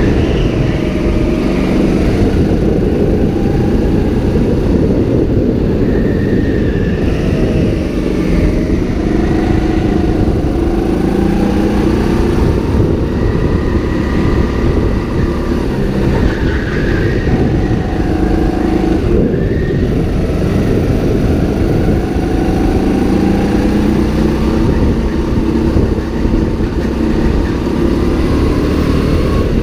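Go-kart engine heard from on board, running hard through a lap, its pitch climbing and falling again and again as the driver accelerates out of corners and lifts into them.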